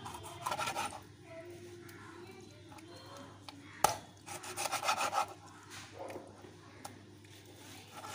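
A large knife cutting through a raw duck on a wooden chopping board: short bouts of the blade sawing and scraping against the wood, with one sharp knock a little under four seconds in, followed by a quick run of strokes.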